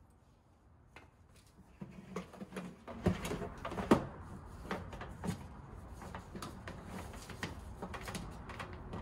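Irregular clicks, knocks and clatter of hands working fittings onto a small ice-machine drain pump. It starts about two seconds in, with the loudest knocks about three and four seconds in.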